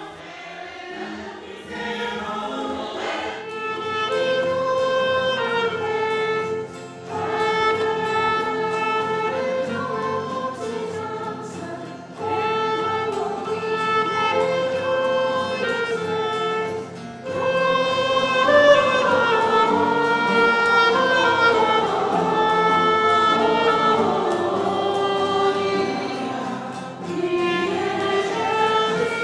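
Choir and congregation singing a Christmas carol, accompanied by acoustic guitars and a clarinet, in phrases of a few seconds with short breaks between them.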